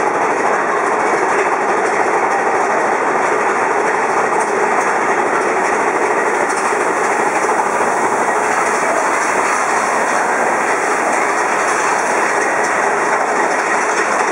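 Big Thunder Mountain Railroad mine-train roller coaster running along its steel track, heard from on board: a loud, steady noise of wheels on rail and rattling cars.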